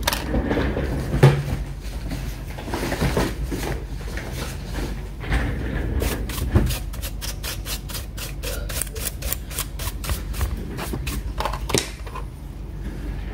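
Hands working on an open laptop's memory: a few knocks and rustles, then a quick, even run of rubbing strokes, about three or four a second, from about six seconds in until near the end. It is the sound of the RAM module or its slot being scrubbed clean.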